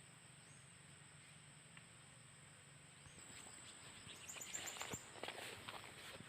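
Quiet outdoor ambience with a steady high-pitched insect drone. About four seconds in comes a brief run of rapid ticking and rustling.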